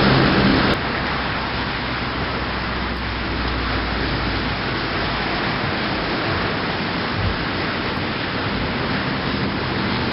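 Music cuts off under a second in, leaving a steady, even outdoor background noise with no distinct events.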